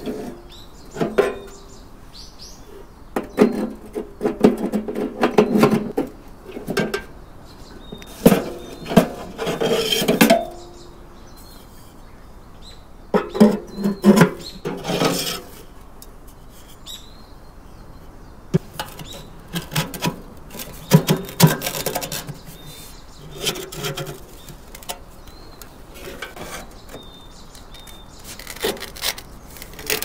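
Irregular bursts of clattering and knocking from objects being handled, some with a brief ringing tone, with short quiet gaps between them. A few bird chirps come through in the gaps.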